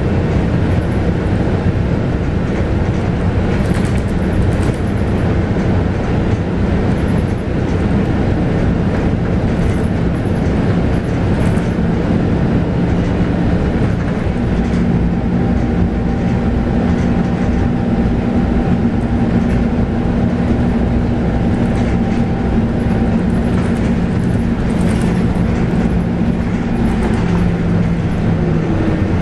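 Interior running sound of a Scania K280UB bus, with its 9.3-litre five-cylinder DC9 diesel and ZF Ecomat automatic gearbox: a steady rumble of engine, drivetrain and road noise. A steady low engine hum sets in about halfway through and holds until near the end.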